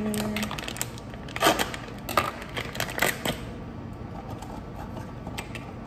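Crinkling and crackling of a cobbler-mix pouch being handled and shaken over a mixing bowl: a run of sharp, irregular crackles, loudest about a second and a half and three seconds in.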